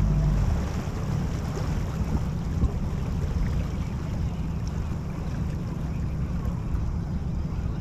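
Wind buffeting the microphone as a low, uneven rumble, over a light wash of open water.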